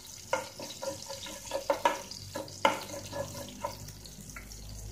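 Tempering spices (mustard seeds, cumin and split dals) frying in hot oil in a nonstick pan, with irregular sharp pops and crackles as the mustard seeds begin to splutter.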